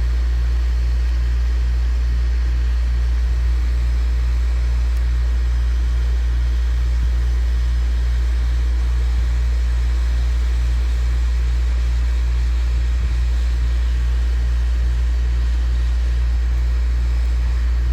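Hot air rework station blowing hot air onto a logic board to desolder a capacitor. It is a steady airflow noise over a strong low hum, with an even pulsing in the hum a few times a second.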